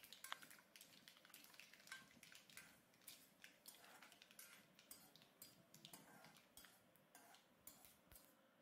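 Faint, irregular clicks and scrapes of a steel spoon against a metal kadhai, stirring cumin seeds frying in a little oil.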